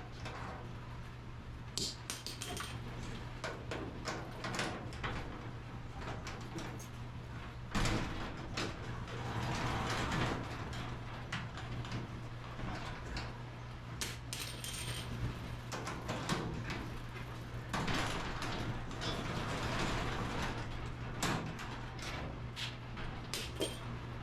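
Irregular metallic clinks, clanks and rattles of garage-door hardware being handled and worked on as the door's rollers are swapped, with louder bouts of knocking partway through.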